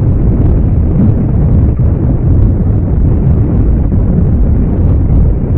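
A loud, steady low rumble that starts and stops abruptly.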